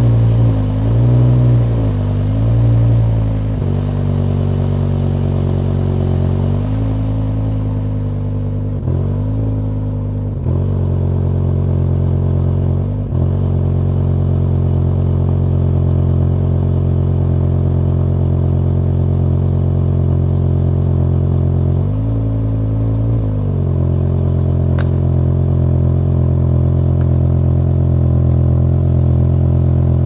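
Fisker Latigo CS's RD Sport V10 engine running at a low, steady idle while the car rolls slowly, with several short blips of the throttle.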